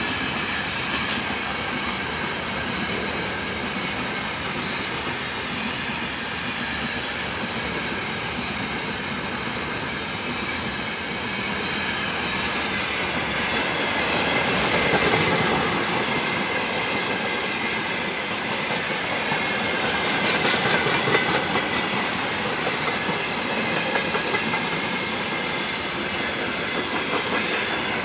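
Long freight train of mixed wagons rolling past on the rails: a steady noise of steel wheels on track with clickety-clack over the rail joints, swelling a little about halfway through.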